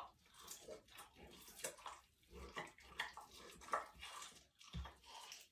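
A cougar eating raw moose meat: quiet, irregular wet smacks and clicks of chewing and tearing.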